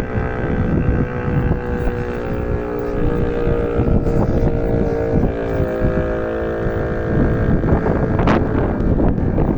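Civil-defence siren test: a steady, unwavering siren tone that dies away about six to seven seconds in. Heavy wind buffeting on the phone's microphone runs underneath and is the loudest sound after the tone stops.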